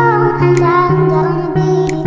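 Background music: a track of sustained pitched notes at a steady, loud level.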